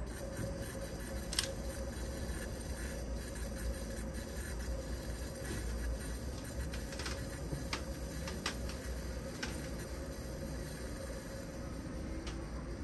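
Vintage Preway camp stove burner being lit and flaring with a tall yellow flame as it warms up. Under a low steady rumble come scattered sharp pops and ticks, about every second or so in the middle stretch.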